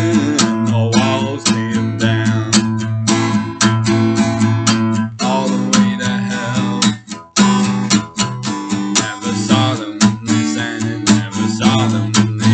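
Instrumental band music led by strummed guitar over a steady bass line, with a brief stop about seven seconds in.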